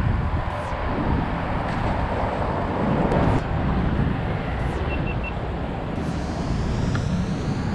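Steady low rumble and hiss of outdoor background noise, with three short high beeps about five seconds in.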